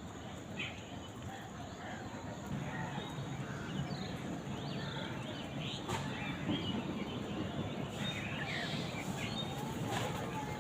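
Outdoor bird calls: many short chirps and calls scattered through, over a steady background noise.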